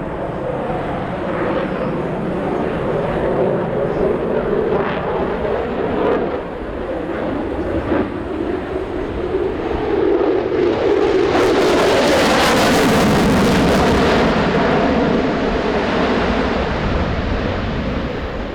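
F-22 Raptor's twin turbofan jet engines running during a pass. A steady jet noise grows about ten seconds in, is loudest and most hissing from about eleven to fourteen seconds, then fades as the jet moves away.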